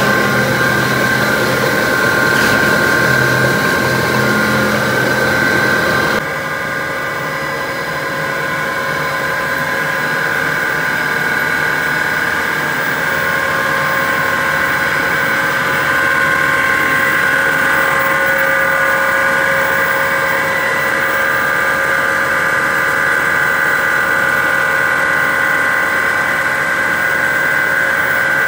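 Plastic pipe extrusion line machinery running: a loud, steady drone with several steady whining tones. About six seconds in the low hum drops away and the higher tones carry on.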